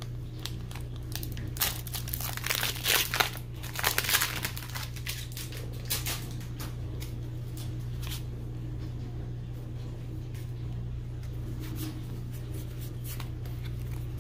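Foil Pokémon booster pack wrapper being torn open and crinkled: a quick run of sharp crinkles over the first few seconds, then only a few faint rustles. A steady low hum sits underneath.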